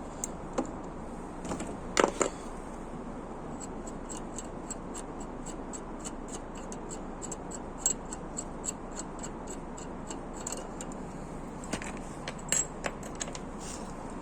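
Socket-wrench ratchet clicking in a run of short, sharp ticks, a few a second, as a stubborn, over-tightened bolt is worked loose. A single sharp knock comes about two seconds in.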